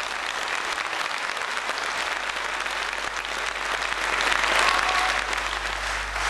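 Audience applauding, a dense, steady clapping that swells about four seconds in.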